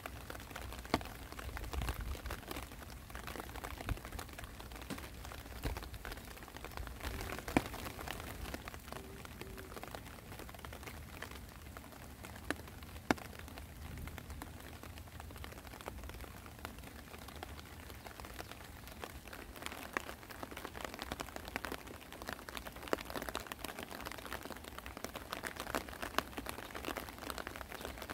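Spring rain falling on grass, leaf litter and plants: a steady hiss with scattered sharp ticks of single drops striking close by.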